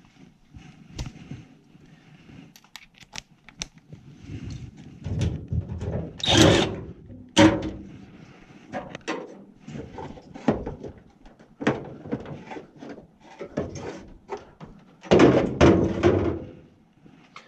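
A furnace condensate pump being handled and opened up: an irregular run of clicks, knocks and thunks, with heavier thuds about six seconds in and again near the end.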